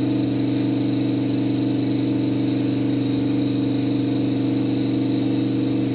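Steady motor hum with a thin high whine held above it, unchanging throughout.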